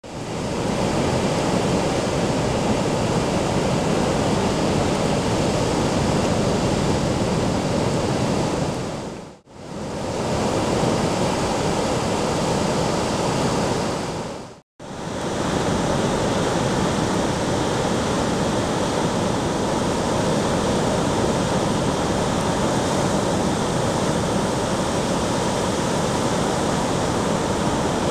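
Ocean surf washing steadily as one constant rushing noise. It drops out briefly twice, about nine and fifteen seconds in.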